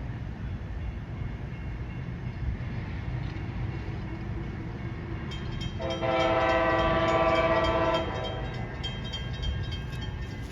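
Horn of an approaching Amtrak Siemens ALC-42 locomotive: one blast of several notes held together, starting about six seconds in and lasting about two seconds, over a steady low rumble. A faint fast ticking starts just before the horn and keeps going.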